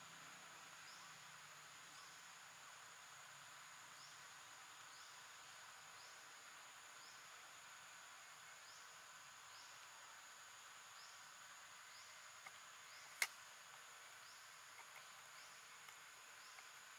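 Faint outdoor insect drone, steady, with a short faint chirp repeating about once a second. One sharp click about thirteen seconds in.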